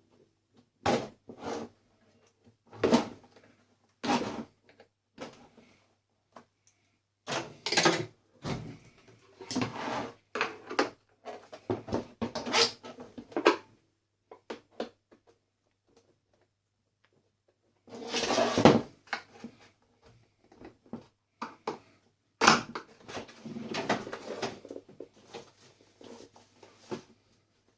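Coffee maker's parts being handled and taken apart by hand: irregular knocks, clatters and scraping of hard plastic and metal, with a pause of a few seconds past the middle.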